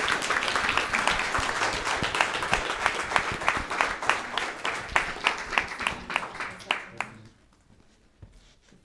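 Audience applauding in a lecture hall. The clapping thins to a few last separate claps and dies out about seven seconds in.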